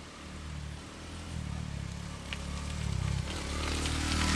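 Honda Cross Cub 110's single-cylinder four-stroke engine running under way, its note shifting in pitch and growing louder toward the end.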